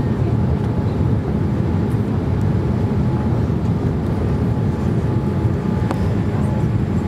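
Boeing 787-8 cabin noise on final approach: a steady low rumble of airflow and engines heard from inside the cabin.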